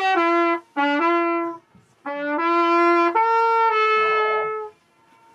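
Flugelhorn played solo on the Königssee boat, a slow melody of long held notes in three short phrases with brief breaks, stopping shortly before the end.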